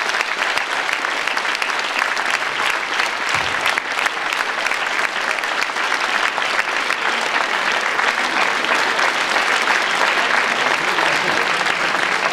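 Concert audience applauding: a steady, dense patter of many hands clapping.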